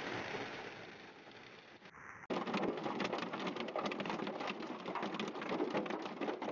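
Hailstones pelting a car's windshield and roof, heard from inside the car: a dense, fast clatter of hard hits that begins abruptly about two seconds in. Before it, a steady hiss of falling precipitation fades away.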